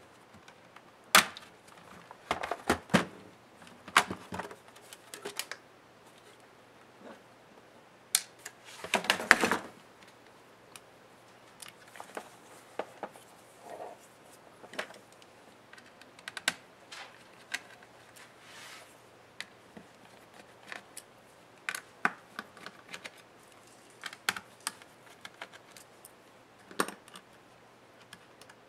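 Scattered clicks, taps and knocks of plastic and metal laptop parts being handled and taken apart, with a cluster of sharp knocks in the first few seconds and a short scraping rustle about nine seconds in.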